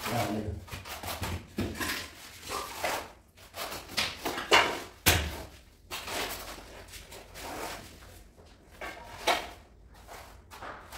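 Tiling work: a trowel scraping over the floor in uneven strokes as tile adhesive is spread, with scattered knocks and clicks, the sharpest knock about five seconds in.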